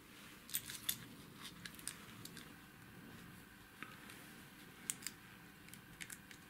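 Small plastic-and-metal lamp module handled in cotton-gloved hands: light rubbing with scattered sharp clicks and ticks, the loudest pair about half a second to one second in and another pair about five seconds in.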